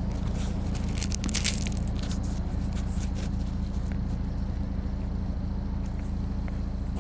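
Volkswagen Golf Mk5's 2.0 FSI four-cylinder petrol engine idling steadily at a constant speed. Crackling clicks sound over it in the first second or two.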